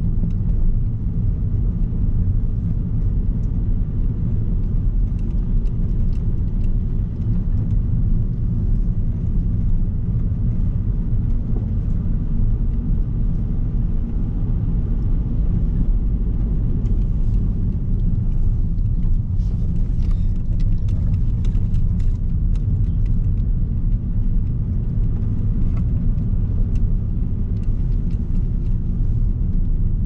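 Car driving steadily, a constant low rumble of engine and road noise heard from inside the cabin, with faint scattered ticks for a few seconds past the middle.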